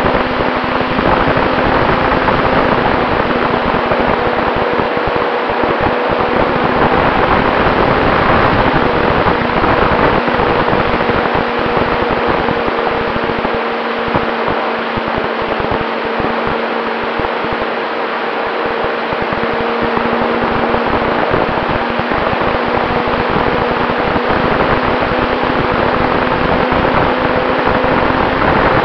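Radio-controlled model Cessna 188 in flight, heard from its own onboard camera: a steady rush of air over the microphone with the motor and propeller's steady drone. The sound eases a little about midway, then picks up again.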